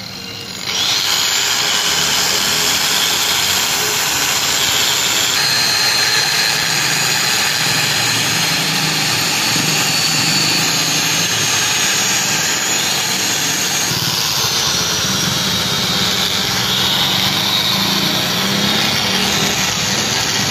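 Electric angle grinder running under load, grinding inside a worn steel pin bore of a crane boom stick to bring welded build-up down to size in place of line boring. It is a steady grinding hiss with a high whine, starting about a second in.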